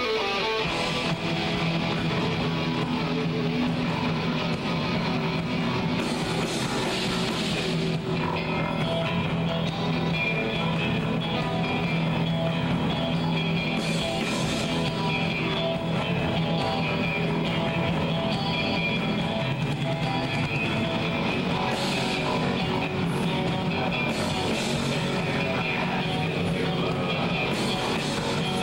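Live rock band playing an instrumental passage: electric guitars over bass guitar and a drum kit.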